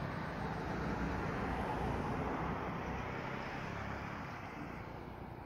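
Even rushing noise like road traffic passing close by. It swells about two seconds in and fades toward the end.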